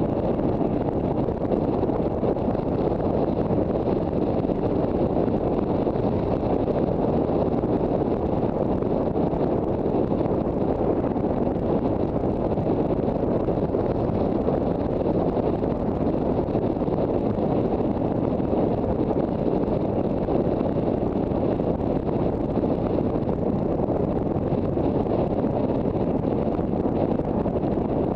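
Steady wind rush over the microphone of a moving motorcycle, with the Honda CB400 Super Bol d'Or's inline-four engine running underneath at an even pace.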